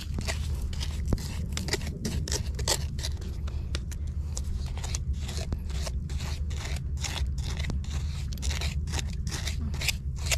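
Bare hands digging and raking through coarse, gritty wet sand and shell grit, a quick irregular run of short crunching scrapes, over a steady low rumble.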